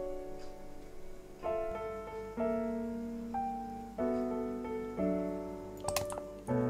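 Background solo piano music: slow notes and chords, each ringing and fading before the next. A few light, sharp clicks come near the end.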